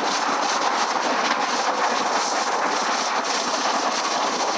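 Water from a burst underground water main gushing up through the road under pressure: a loud, steady rushing.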